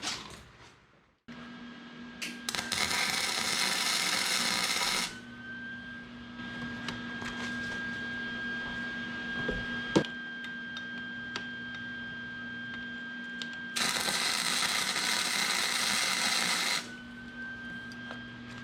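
Electric welder tack-welding a steel arm onto a steering column: two bursts of arc hiss, the first about two and a half seconds long starting a couple of seconds in, the second about three seconds long past the middle. Between the bursts there is a steady electrical hum and a sharp click midway.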